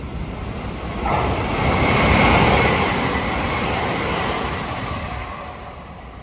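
Meitetsu 3150 series electric train, two units coupled, passing close by: a rush of wheel and motor noise that swells sharply about a second in, with a steady high whine on top, then fades away as the train goes past.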